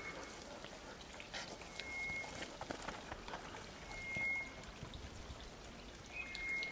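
A short, steady high whistle repeating about every two seconds, four times, over faint outdoor background noise with scattered light ticks.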